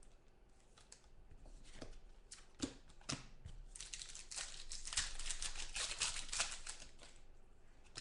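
Football trading cards being handled and flipped through, with crinkling and a run of sharp clicks and snaps, busiest in the second half.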